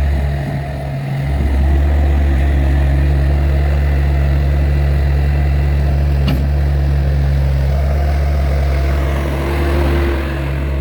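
Mustang 2044 skid steer's engine running steadily, with a brief dip in level about half a second in and a single sharp click about six seconds in.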